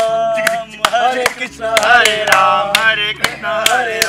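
A group of men singing a Hindi song together, with hand claps marking the beat.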